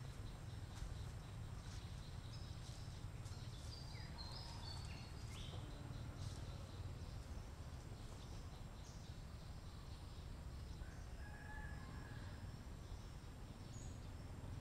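Faint forest ambience: a low steady rumble with scattered short bird chirps, thickest in the first half, and a thin steady high tone.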